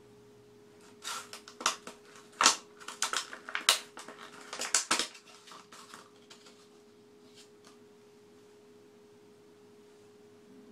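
A flurry of sharp clicks and taps, starting about a second in and lasting about four seconds, over a steady faint hum.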